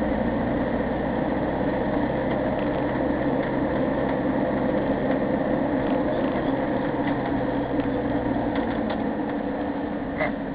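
Vehicle engine and road noise heard from inside the cab while driving: a steady hum with a low engine tone that drops away about eight seconds in.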